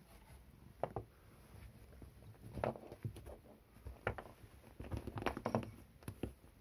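Cats moving and pawing about on a cloth-covered sofa back: irregular short rustles and taps in clusters, densest about five seconds in.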